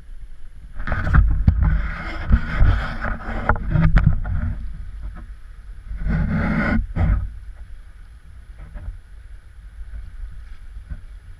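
Rumbling and knocking on an action camera's microphone in two loud spells, about a second in to four and a half seconds, and again around six to seven seconds. Between and after them, the faint rush of a shallow stream over rocks.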